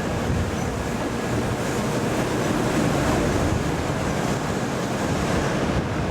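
N700A Shinkansen train passing, a steady rumble of wheels and running gear on the rails with no clear rhythm.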